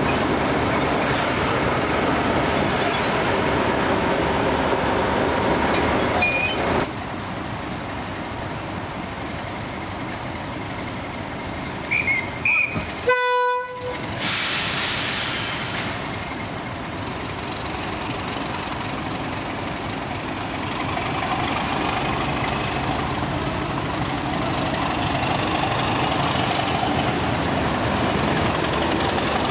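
Class 31 diesel locomotive's English Electric V12 engine running loudly. After a cut, a horn sounds briefly about twelve seconds in, and a Class 31-hauled train runs into the platform, its engine growing louder as it comes past.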